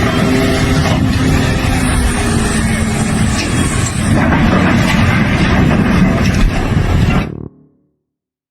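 Loud, steady running of a vehicle or heavy machine, with a faint low hum in the noise, cutting off abruptly about seven seconds in.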